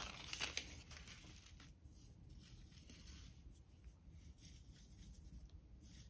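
Faint rustling and crinkling of a tissue-backed sheet of copper metal leaf as it is handled and torn onto clay, with a few light crackles mostly in the first second.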